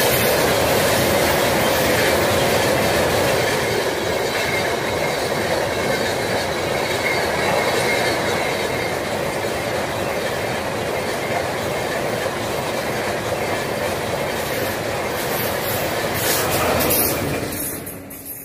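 Amrit Bharat Express coaches passing close by at speed: a steady loud rumble and rattle of wheels on the track, with a faint thin squeal at times. It falls away quickly near the end as the last of the train clears.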